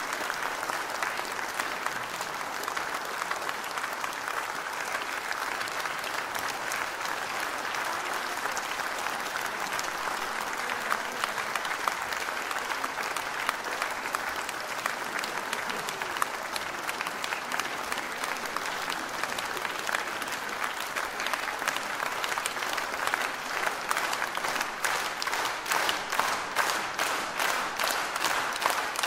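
Concert audience applauding. About two-thirds of the way through, the clapping falls into rhythmic unison at about three claps a second.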